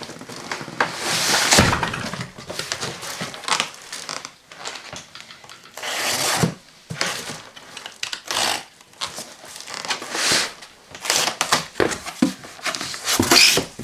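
Cardboard shipping box and packaging being handled and opened: irregular rustling and crinkling, with a heavier thud about a second and a half in.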